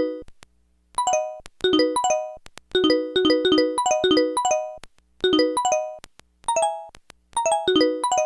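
Samsung SPH-A840 phone playing a polyphonic ringtone through its speaker: a bell-like melody of short, quickly fading notes in repeating phrases with short gaps between them.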